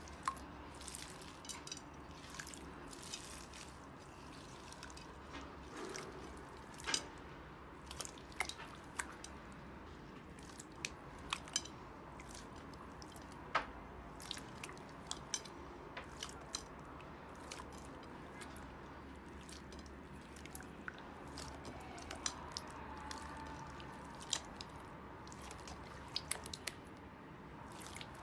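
Slime being squeezed and stretched by hand, giving a string of irregular small sticky clicks and pops as air pockets burst.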